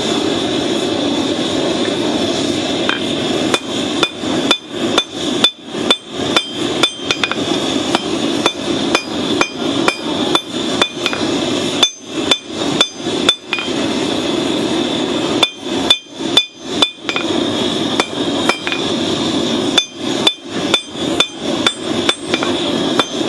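Hand hammer striking a red-hot steel blade, forged from a horseshoe rasp, on an anvil: runs of quick blows, about two a second, each with a bright metallic ring, broken by short pauses. A steady rushing noise runs underneath.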